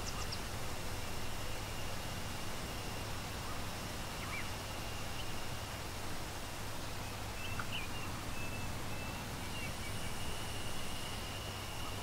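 Steady rushing water of a waterfall with a continuous high-pitched drone over it, and a few short bird chirps: one right at the start, one about four seconds in, and a cluster around eight seconds.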